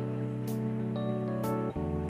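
Background music: sustained chords with a light, crisp tick about once a second, the chord changing near the end.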